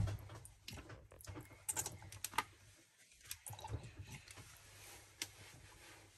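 Faint scattered clicks and light taps of kitchen handling as bottled lemon juice is added to raw fish pieces in a glass bowl, with one sharper click at the very start.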